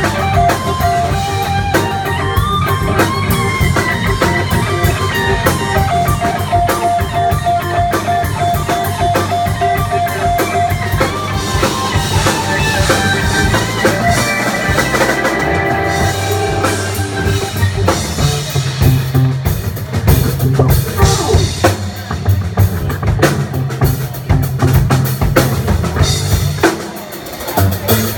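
Live rock band playing through a PA: electric guitars with long held notes over bass, keyboard and a drum kit. The music briefly drops back near the end before the drums come in hard again.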